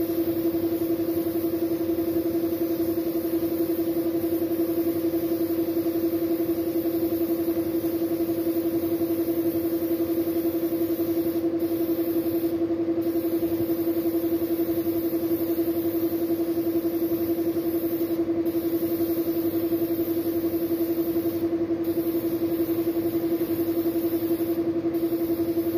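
Air spray gun hissing as it sprays paint onto a motorcycle wheel rim. The hiss breaks off briefly about five times in the second half. A steady machine hum runs beneath it and is the loudest part.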